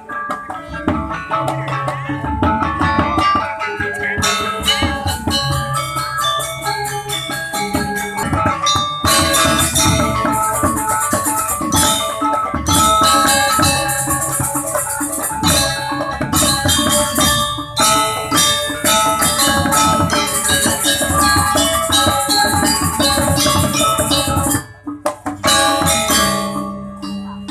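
Balinese gamelan gong kebyar playing fast and energetically: struck bronze metallophones ring in interlocking notes over drums, with stretches of crashing cymbals. Near the end the ensemble cuts off abruptly, then comes back in with a few sharp accented strokes.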